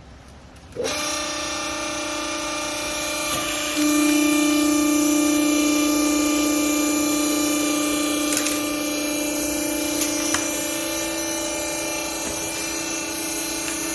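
Hydraulic clothes baler's motor and pump starting suddenly about a second in and running with a steady whine, which grows louder about four seconds in as the pump comes under load.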